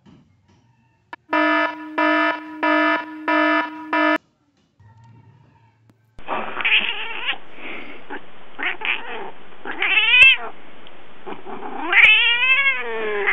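Five short, flat electronic beeps in quick succession. Then a kitten growls and yowls as its claws are clipped, an angry cat objecting to the trim, with loud rising-and-falling meows about ten seconds in and again near the end.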